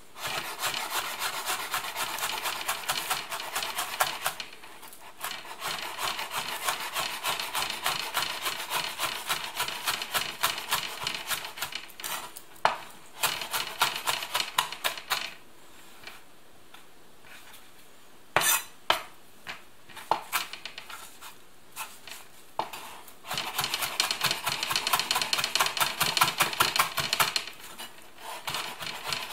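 Chef's knife chopping spring onions and then parsley on a bamboo cutting board: runs of quick, even strokes of the blade on the board, broken by short pauses.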